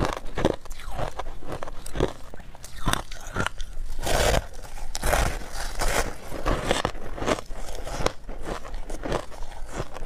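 Close-miked crunching of packed shaved ice being bitten and chewed: a run of short, crackly crunches, densest and loudest about four to six seconds in.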